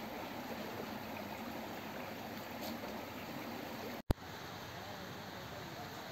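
Steady rushing of flowing stream water, with a brief dropout and a sharp click about four seconds in.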